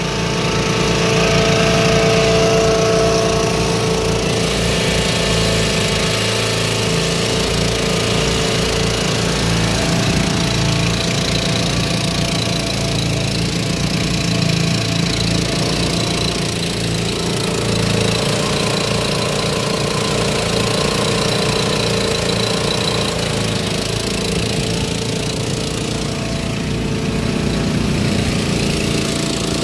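Small single-cylinder engine of a portable generator running steadily at constant speed.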